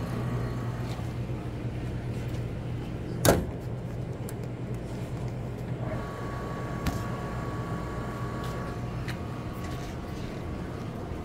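Steady low electric hum of a Slurpee machine running, its motors and refrigeration on. A single sharp knock comes about three seconds in, and a faint steady high tone joins about halfway through.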